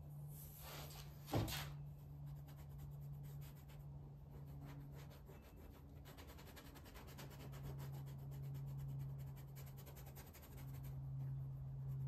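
Paintbrush bristles scratching and rubbing on oil-painted, gesso-primed canvas in many quick short strokes. There is one sharp knock about a second and a half in, and a low steady hum underneath.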